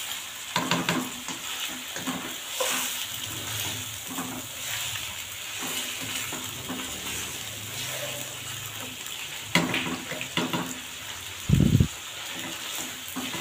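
Chicken pieces and garlic-ginger paste sizzling in ghee in a non-stick wok as they are stirred and turned with a slotted spatula, with scrapes and taps of the spatula on the pan now and then. A dull thump near the end is the loudest sound.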